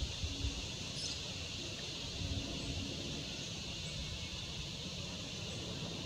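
Steady outdoor ambience: an even high-pitched hiss with one faint short chirp about a second in.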